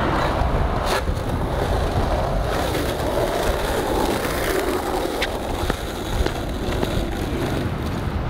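Skateboard wheels rolling over asphalt: a steady rough rumble with a few sharp clacks. It starts suddenly and cuts off suddenly.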